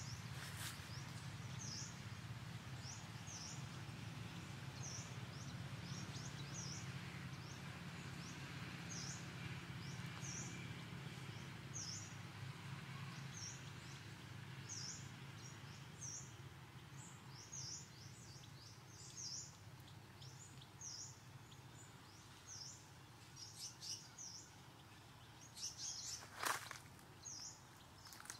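A small bird calling over and over with short, high chirps, one or two a second, against faint background noise. A low hum fades out by the middle, and one sharp click comes near the end.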